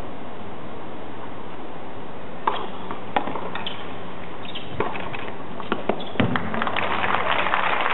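Tennis rally: sharp pocks of a ball struck by rackets, about one a second, over a steady background hiss. Near the end a small crowd's applause starts and grows.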